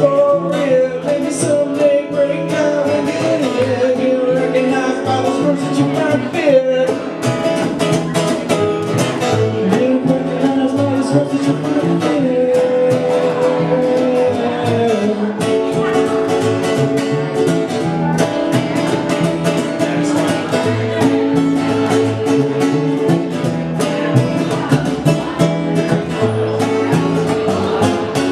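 Live acoustic band in a bluegrass-rock style: a man sings over a strummed acoustic guitar and a plucked upright double bass.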